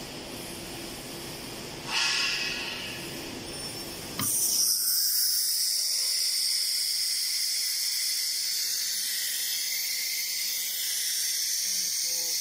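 Machine hum from a CNC router, with a short swell of air hiss about two seconds in. About four seconds in a sharp click, then the hum drops away and compressed air hisses steadily from the router's pneumatics.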